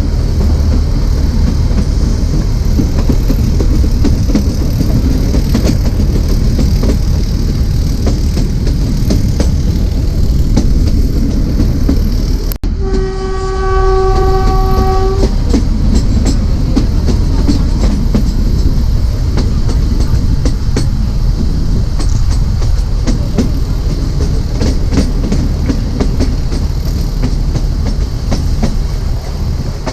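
Narrow gauge train running, a steady rumble of wheels on rail with rapid clicks. About halfway through, the ZDM4A diesel locomotive's horn sounds once for about two and a half seconds.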